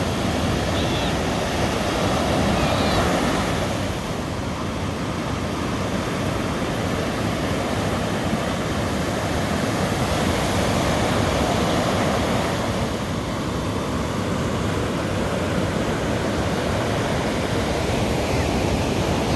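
Ocean surf washing onto a beach, a steady rushing noise that swells and ebbs gently as waves break.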